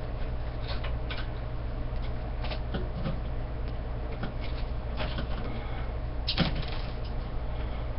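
Light clicks and clinks of aluminium antenna tubes and a metal bracket being handled and fitted together, with one louder clack about six seconds in. A steady low hum runs underneath.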